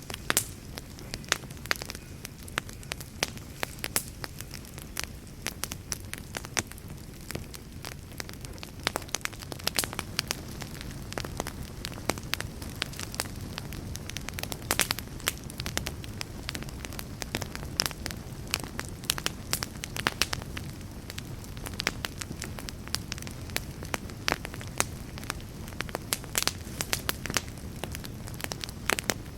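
Wood fire burning in a fireplace, with a steady low rumble of flame and frequent irregular sharp crackles and pops from the burning wood.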